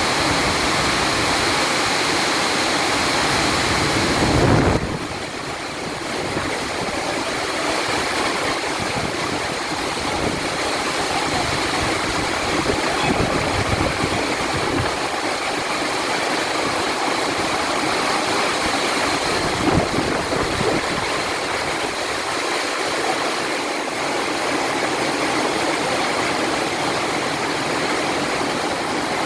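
Heavy storm rain pouring down in a steady, loud hiss. There is a brief louder low burst about four and a half seconds in.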